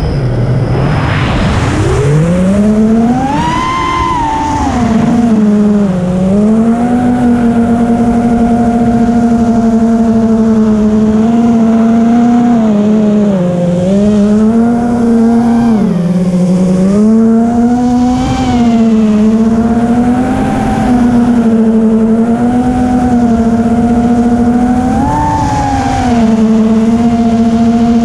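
FPV racing quadcopter's brushless motors and propellers whining, heard from the onboard camera. The pitch starts low, climbs steeply over the first few seconds, then holds fairly steady with several short dips and rises as the throttle changes.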